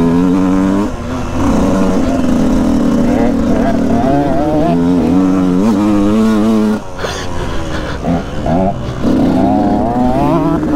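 Motocross bike engine under way on a dirt track, revving up and down with the throttle, its pitch rising and falling. It backs off briefly about a second in and again around seven seconds in.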